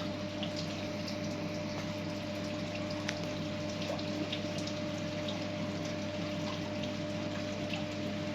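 A steady mechanical hum with scattered faint ticks and drips over it, like a small water pump running.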